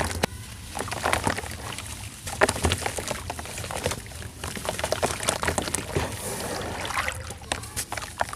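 Large chunks of packed red sand crumbling and breaking apart, with irregular crunches and crackles over a steady trickling hiss of falling sand.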